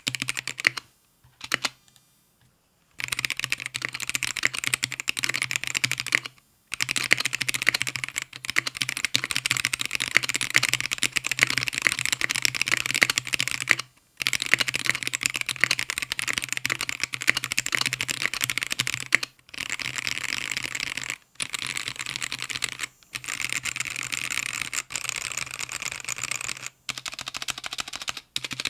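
Fast typing on a GamaKay K77 mechanical keyboard with linear Gateron Black switches resting on a deskmat: a dense clatter of keystrokes broken by a few short pauses. From about two-thirds of the way in it turns to rapid random key mashing.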